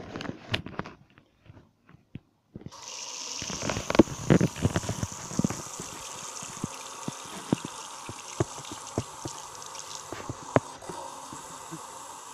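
Bathroom sink tap turned on about two and a half seconds in, then running steadily, the water splashing over a person's head and hair held under the spout. A few knocks and clatters come before the water starts.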